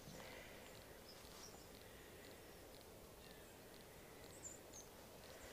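Near silence: faint outdoor background, with a few faint high bird chirps about four and a half seconds in.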